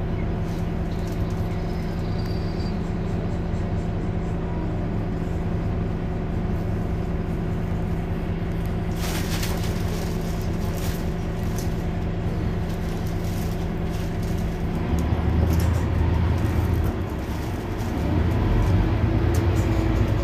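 Mercedes-Benz Citaro C2 Hybrid city bus running with a steady engine hum, with a short burst of hissing about halfway through. About 15 seconds in the hum gives way to a louder, deeper rumble that dips briefly and then rises again.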